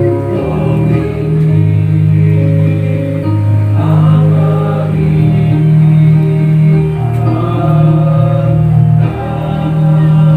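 Hymn singing with instrumental accompaniment: held bass notes that change every second or two under the voices and melody.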